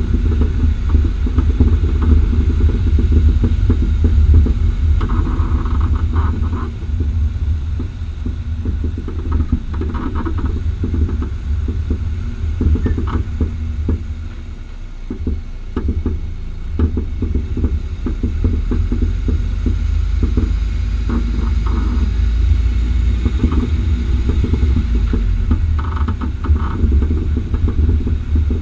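Renault Megane III driving over the road, with a steady low rumble and repeated short knocks and pops from its front-right Bilstein PSS9 coilover with H&R springs. Brief higher-pitched squeaks come a few times. The popping and squeaking are a fault the owner has not traced, and it has come back after two repairs.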